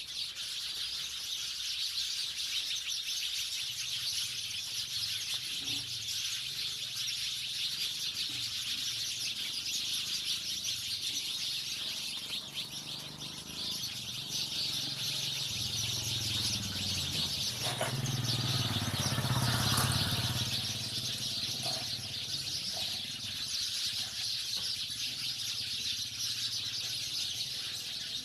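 A group of house sparrows chirping continuously in a dense, overlapping chatter. A low rumble swells and fades a little past the middle.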